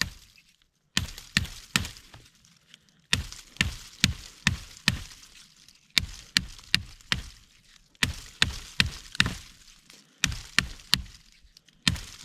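Small survival hatchet chopping into a log: sharp strikes in quick runs of three to six, about three a second, with short pauses between runs. The blade makes slow headway, chopping that "might take forever".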